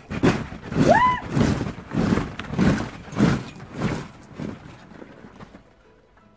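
Rhythmic thumps on a trampoline mat, about eight in a row, evenly spaced a little over half a second apart and dying away after about five seconds, with a short rising squeal about a second in.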